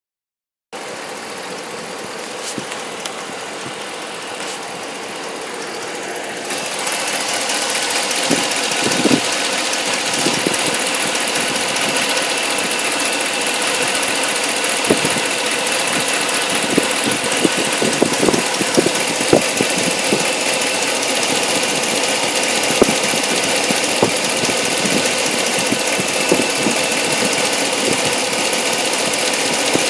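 2013 Chrysler Hemi V8 engine running steadily, with a steady high tone and irregular sharp ticks. This is the strange noise the owner is trying to show. The sound gets louder about six seconds in, and the ticks start soon after.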